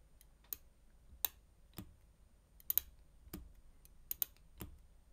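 Ratchet of a metal surgical needle holder (needle driver) clicking as its sawtooth teeth between the rings are locked and released: about nine sharp, irregularly spaced clicks, some coming in quick pairs.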